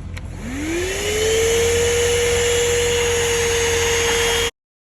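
A 12-volt handheld car vacuum cleaner switched on with a click, its motor spinning up in a rising whine over about a second, then running at a steady pitch with a rushing hiss of air. It cuts off abruptly near the end.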